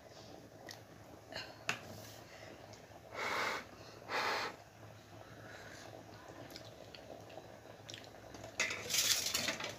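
A person's short breathy puffs close to the microphone while tasting the curry for salt: two about three and four seconds in, and a third near the end. A few faint clicks come early on.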